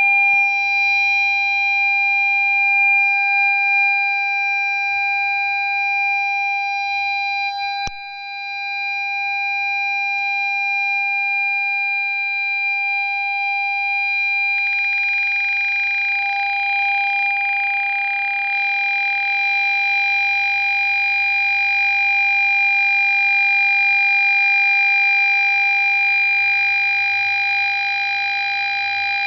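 Ford Fiesta parking sensor sounding one continuous, unbroken beep tone, the signal that an obstacle is very close. There is a short click about eight seconds in, and a hiss joins the tone about halfway through.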